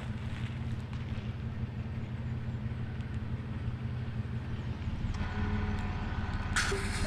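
A car driving, with a steady low engine and road rumble. About five seconds in the sound shifts, and a short hiss comes near the end.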